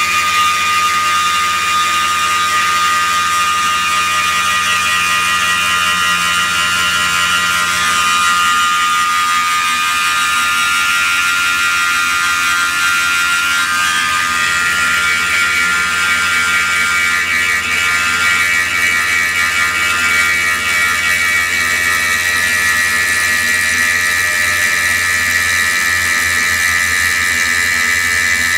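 Tormach PCNC 1100 CNC mill spindle running as an end mill cuts a metal billet under coolant: a steady, high-pitched machining whine. The whine shifts to a higher, stronger pitch about halfway through.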